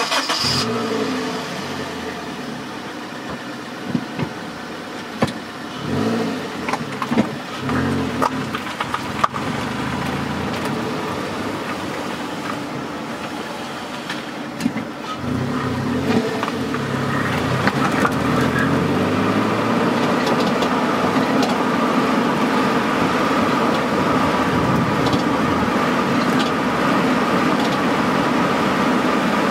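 Car exhaust recorded right at the tailpipe while the car pulls away and drives slowly. The exhaust note rises and falls with the throttle, with a few brief sharp sounds in the first ten seconds. From about halfway through it settles into steadier cruising.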